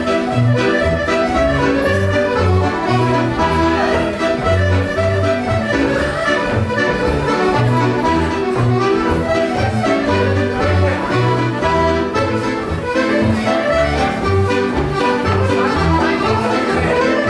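Live accordion and fiddle playing a lively Scottish country dance tune, with the accordion's bass notes keeping a steady beat under the melody.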